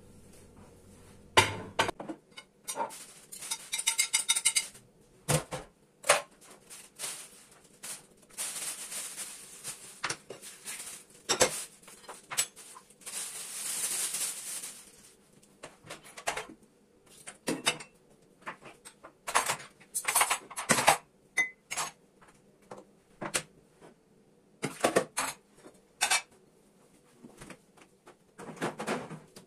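Dishes and cutlery being handled during housework: irregular clinks and knocks, with a couple of longer hissing stretches in between.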